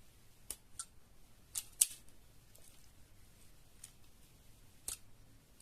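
Automatic wire-stripper pliers being handled, with a few scattered sharp metal clicks and snaps; the loudest comes a little under two seconds in, and another is near the end.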